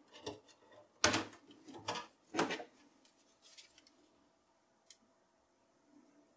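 Plastic front bezel of a Dell OptiPlex 9020 being unclipped from the metal case: a run of sharp plastic clicks and clatters as its clips snap free, the loudest about a second in. A light scrape follows as the bezel comes away, then a single small tick.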